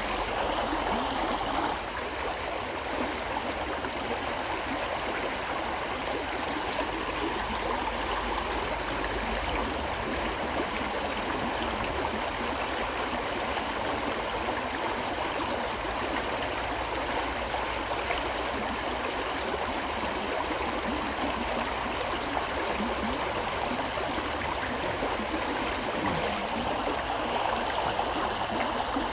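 River water flowing in a steady, gentle rush, unbroken throughout.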